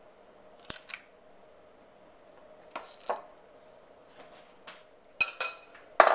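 Ice cream scoop clinking against a glass mixing bowl and a muffin tin while muffin batter is scooped into paper liners: short separate clinks every second or so, the loudest near the end.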